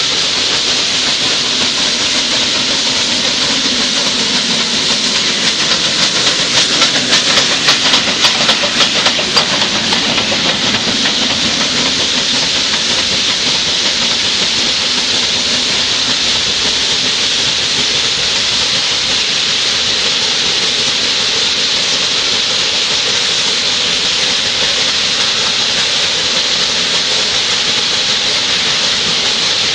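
Nilgiri Mountain Railway X-class rack steam locomotive working past close by: a steady loud hiss of escaping steam, with a rapid rhythmic beating from the engine and running gear that swells for a few seconds about a fifth of the way in.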